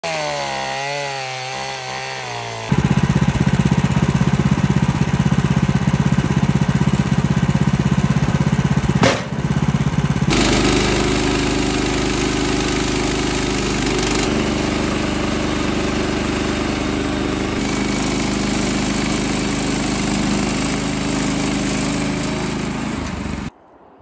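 Gasoline chainsaw revving, then running at full throttle cutting into a log. About ten seconds in it gives way to a Woodland Mills HM130MAX portable bandsaw mill, its gas engine running steadily as the band blade saws the log into boards; the sound stops abruptly just before the end.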